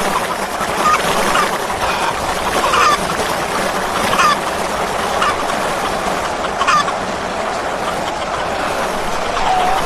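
A large flock of chickens clucking and squawking together, a dense steady din with single louder squawks standing out now and then.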